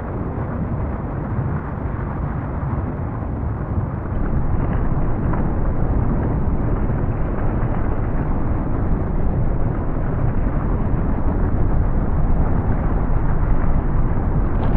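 Deep, continuous rumble of a composed volcanic-eruption soundscape, heavy in the low end with little high sound. It grows louder about four seconds in.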